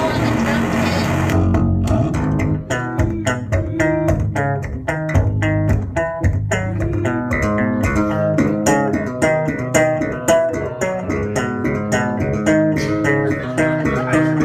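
Solo electric guitar through an effects pedal: a dense, distorted wash of sound that cuts off about a second and a half in, followed by a run of rapid, separately picked notes, several a second.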